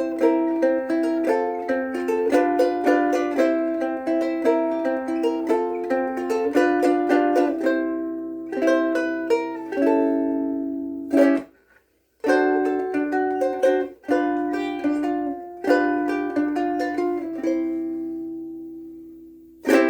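1950s Sherwood (Gretsch) soprano ukulele strung with Aquila Sugar strings, played with quick, upbeat fingerpicking. The picking stops briefly about eleven seconds in, then resumes, and a last note rings out near the end.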